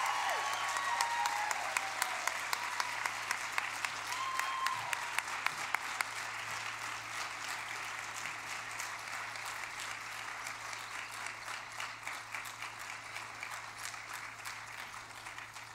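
Audience applauding, with some cheering shouts in the first second and once more about four seconds in; the applause gradually dies away.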